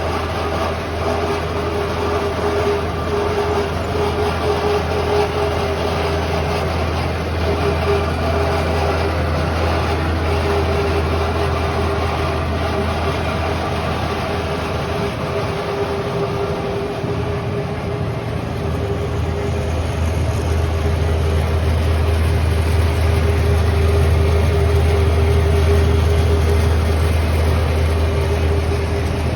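Dancaert bandsaw running steadily: a constant low hum under a steady whine, growing somewhat louder in the second half.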